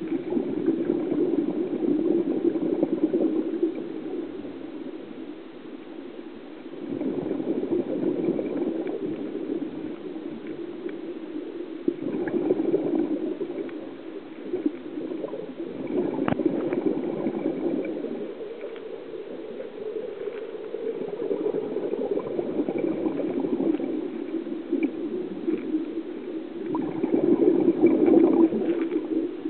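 Scuba diver's exhaled bubbles gurgling up from the regulator, heard underwater. The bubbling swells and fades with each breath, about every five seconds.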